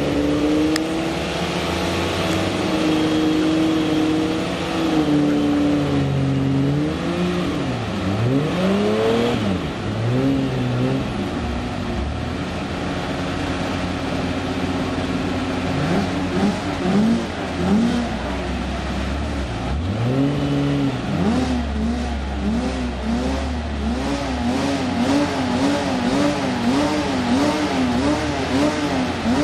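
Unimog 404 S trial truck's engine revving up and down as it crawls up a steep rocky slope, the revs swinging in slow deep swoops midway. Near the end comes a fast run of regular throttle blips, about one and a half a second.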